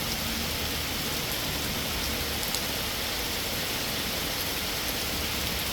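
Heavy rain falling steadily in a summer downpour, with a few sharper drop hits.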